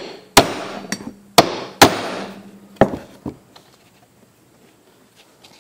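Hammer striking a steel leather punch to drive it through paper gasket material on a wooden board, punching bolt holes. About five sharp blows with short decaying tails in the first three seconds, a faint metallic ring hanging under the middle blows, then quiet.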